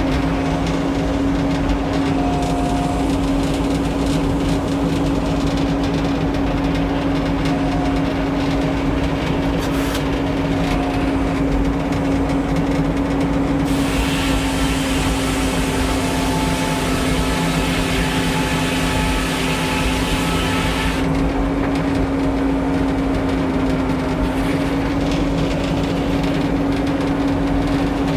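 An old Frick circular-saw sawmill's power unit runs steadily with a strong, even hum. About halfway through, for some seven seconds, a harsh hissing rush joins it as the saw cuts through a pine log, then stops and the engine runs on alone.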